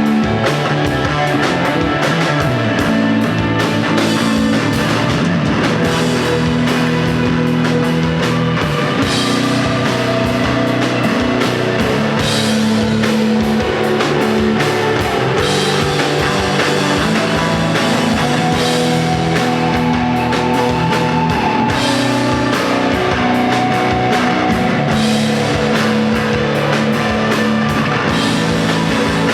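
Live rock band playing instrumental desert rock: electric guitar and bass holding long, sustained notes over a drum kit, with cymbal crashes every few seconds.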